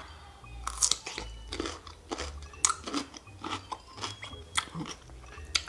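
Biting into a homemade dill pickle spear, then chewing it with a string of irregular crunches.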